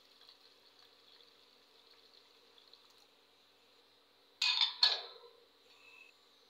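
A stainless steel plate is set down as a lid on a steel bowl. It clanks twice, about half a second apart, metal on metal, with a short ring after.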